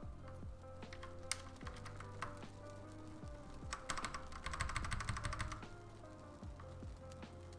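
Keystrokes on a thocky 80% mechanical keyboard: scattered single key presses, then a quick run of rapid typing about four seconds in. Background music plays underneath.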